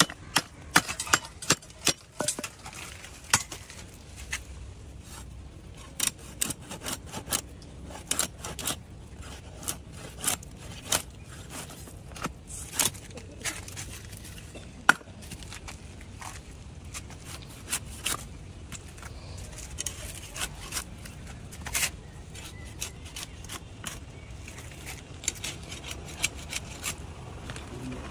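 Large cleaver chopping and scraping whole fish on a wooden block: irregular sharp knocks and scrapes, several of them loud.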